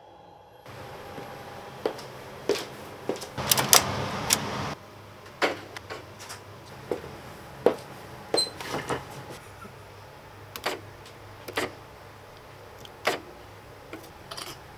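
A door handle and door, then scattered sharp clicks and knocks as buttons and faders on a large studio mixing console are worked, over a steady low hum.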